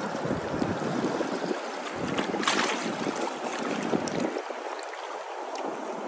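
Shallow water lapping and washing over pebbles at the shoreline, with wind buffeting the microphone; a brief louder rush of water about two and a half seconds in.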